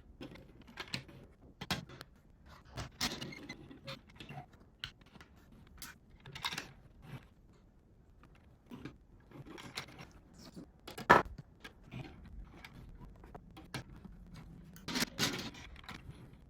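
Small plastic toy figures being handled and set down on a hard surface: scattered light clicks, taps and scrapes, with one sharper click about eleven seconds in.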